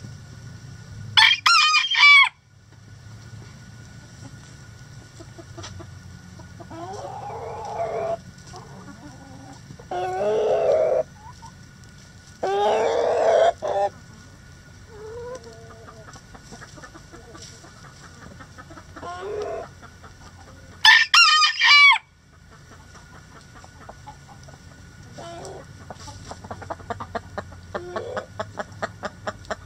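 Backyard chickens calling: roosters crowing several times, with two very loud, shrill calls about a second in and again about two-thirds of the way through, and hens clucking rapidly near the end.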